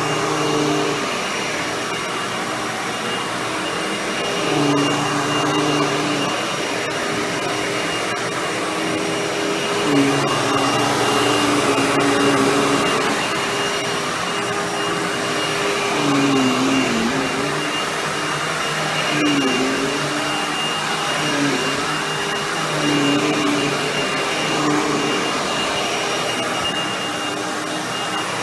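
Hoover WindTunnel Anniversary Edition bagless upright vacuum running on carpet: a steady motor drone with a high whine, its lower hum dipping in pitch and recovering several times.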